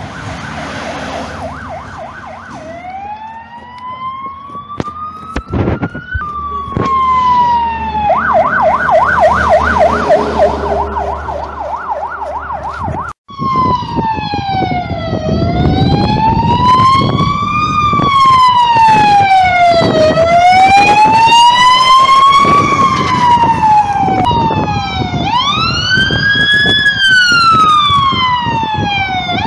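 Fire engine sirens alternating between a fast warbling yelp and a slow wail that rises and falls every couple of seconds, over the low rumble of engines and traffic. The sound cuts out abruptly for a moment about 13 seconds in.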